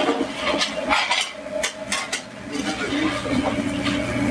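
Clatter of metal kitchen pans and utensils, with a run of sharp knocks and clinks between about one and two seconds in, over a steady low hum.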